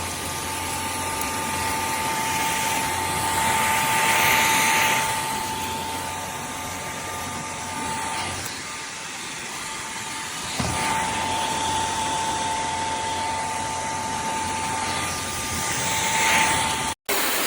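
Shark Clean & Empty cordless stick vacuum running steadily with a whine over the rush of air. The whine drops out for about two seconds midway, then returns, and the sound stops briefly near the end.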